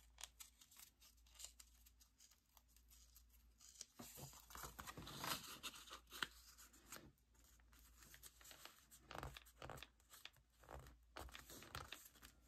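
Faint rustling and light taps of paper and card being handled and fitted into a journal.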